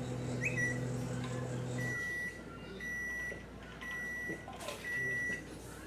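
Microwave oven running with a steady hum that cuts off about two seconds in, followed by four high beeps about a second apart: the cooking cycle has finished.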